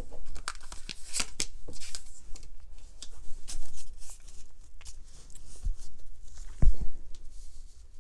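Tarot cards being handled and shuffled by hand: a run of quick papery flicks and slaps as the cards rub and snap against each other. A single louder, dull thump comes about two-thirds of the way through.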